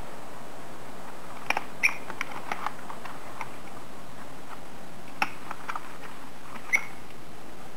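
Folded paper rustling and crackling as origami units are handled and pressed together, with a few sharp clicks. The loudest clicks come about two seconds in and near the end. A steady hiss runs underneath.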